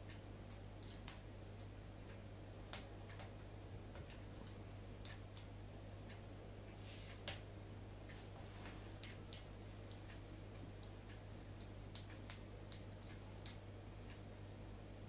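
Light, sharp clicks and ticks at irregular intervals, about a dozen, from tools working the scope-ring screws as they are tightened back up, over a steady low hum. The loudest click comes about seven seconds in.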